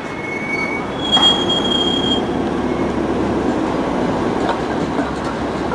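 A rail vehicle passing with a steady rushing noise that builds up. Two brief high squeals of the wheels come near the start, each lasting about a second.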